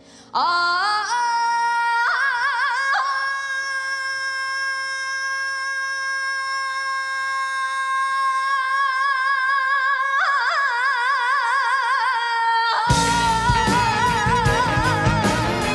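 A woman sings a long, unaccompanied held note in the Tsugaru min'yō style, with wide vibrato and ornamental turns, climbing in steps at the start. About thirteen seconds in, the full band comes in loudly under her voice.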